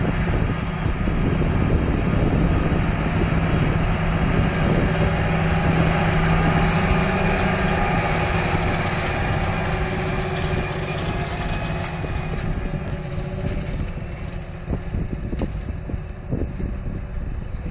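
John Deere 8430T tracked tractor's diesel engine running steadily under load as it pulls a tillage implement past, a low drone that weakens near the end as the tractor moves away.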